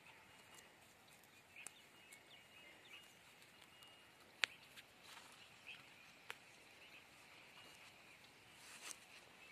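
Near silence in open farmland, with faint bird chirps and a few soft clicks. One sharper click comes a little under halfway through.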